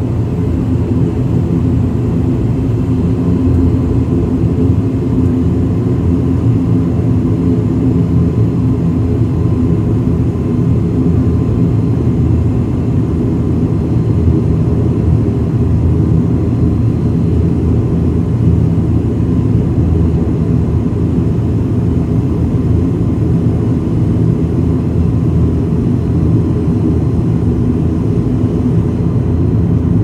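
ATR twin-turboprop airliner's engines and propellers running at low power while the aircraft taxis after landing, heard from inside the cabin. A steady, loud, low drone with a faint steady whine above it.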